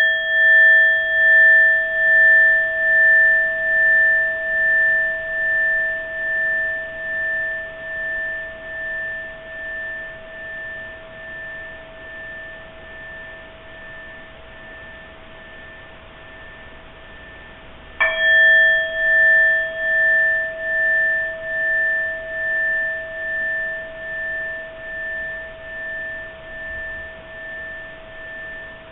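Small Zen temple bowl bell ringing out after a strike, its clear tone pulsing as it slowly fades; it is struck again about 18 seconds in and rings on, fading. These are the bells that signal the start of a zazen sitting.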